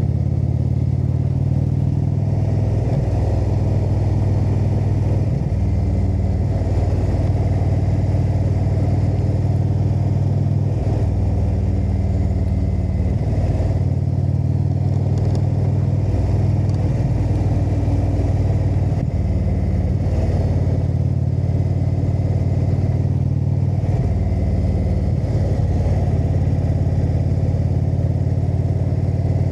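Indian motorcycle's V-twin engine running on the move, its pitch stepping up and down every few seconds as the throttle and speed change.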